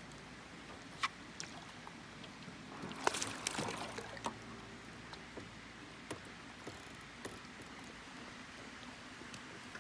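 Largemouth bass splashing at the surface beside the boat for about a second and a half, starting about three seconds in, as it is landed by hand. Before and after, a low steady wash of water against the boat with scattered light clicks and knocks.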